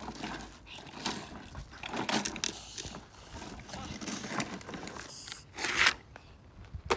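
Gravel crunching and scraping in irregular bursts under the plastic wheels of a toddler's ride-on toy car, with a louder scrape near the end and a sharp click at the very end.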